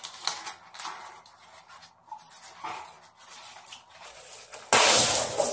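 Long latex modelling balloons being handled and twisted: faint squeaks and rubbing, then a sudden loud rush of rubbing noise about five seconds in.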